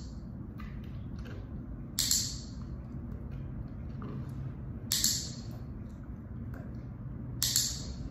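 Dog-training clicker clicked three times, about every two and a half seconds, marking the dog as it holds its chin on the cushion.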